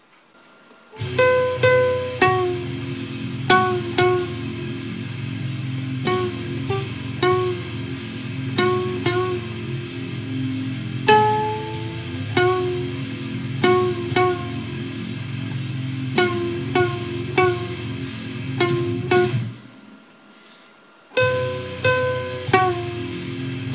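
A soprano ukulele plucked as a melody of single notes over a steady low tone. The playing breaks off for over a second near the end, then starts again.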